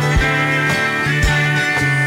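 Background music: guitar-led instrumental with a steady beat of about two strokes a second.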